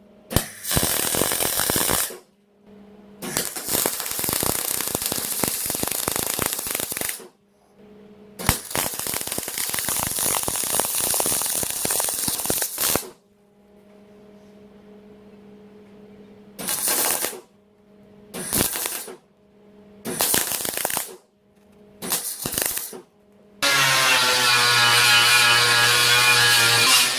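MIG welder arc crackling in three long runs of several seconds, then in four short bursts of about a second, with the welder's steady hum between runs: welding blanking plugs into cut motorcycle frame tubes. Near the end a handheld power tool starts up and runs steadily.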